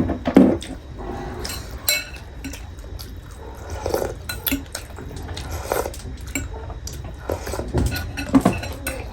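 Eating at the table: utensils clink and scrape against bowls and plates, with short wet sounds of soup and food being taken, scattered irregularly.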